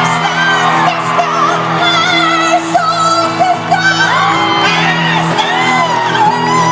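Live band playing while a large crowd sings along and whoops, many voices at once in a big hall.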